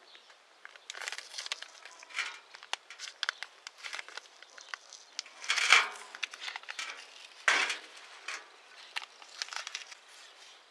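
Irregular rough scraping and rubbing strokes, uneven in length and loudness, the loudest about six seconds in and another strong one about a second and a half later.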